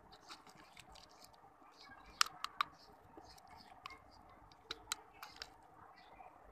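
Faint, scattered wet clicks of fingers working the innards out of a raw whole chicken's cavity, coming in two small clusters, a few about two seconds in and more near the end.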